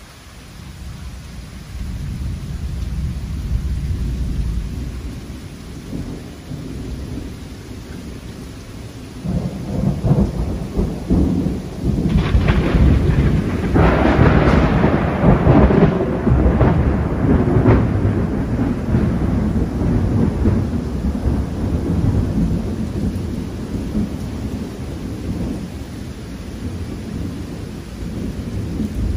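Thunder rolling over steady rain: a low rumble builds about two seconds in, then a louder, sharper peal breaks around nine seconds, peaks for several seconds, and dies away slowly into a long low rumble.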